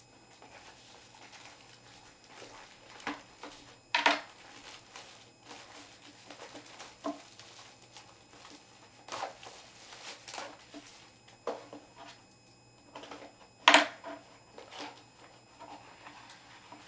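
A plastic-wrapped cardboard trading-card box being pierced, unwrapped and opened by hand: scattered rustles, taps and scrapes. Two sharper knocks stand out, one about four seconds in and one near fourteen seconds.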